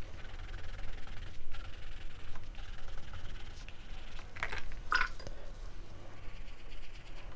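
Faber-Castell Albrecht Dürer watercolour pencil scratching across textured watercolour paper as colour swatches are scribbled in with short back-and-forth strokes.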